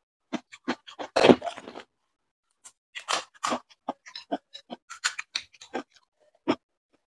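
Close-up crunching and chewing of crisp fuchka (panipuri) shells, with a loud crunch about a second in, then a run of short, sharp crackles as another hollow shell is cracked open and filled with spiced potato from a spoon.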